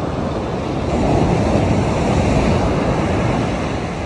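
Ocean surf breaking and washing up a black sand beach. The rush of water swells about a second in and eases off near the end.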